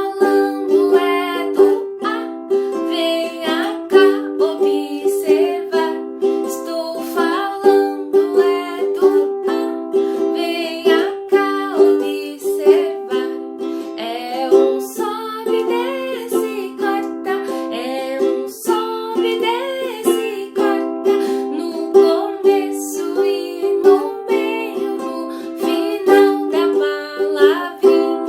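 Strummed string-instrument music playing a simple tune in a steady rhythm.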